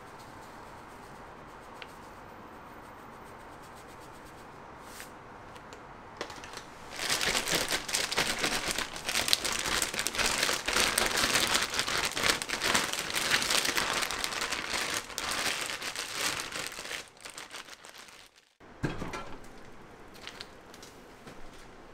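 Plastic zip-top bag of cut cucumbers crinkling loudly as it is shaken and squeezed to mix in the seasoning, for about ten seconds. Before that there is only faint steady room tone, and near the end it turns quieter with a few faint knocks.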